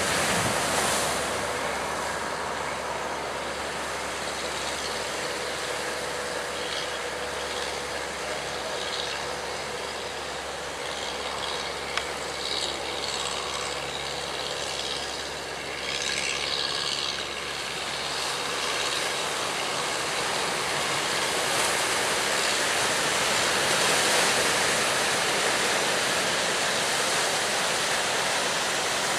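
Steady rush of surf and wind over rough open water, with brief louder splashes in the middle and a faint low hum underneath.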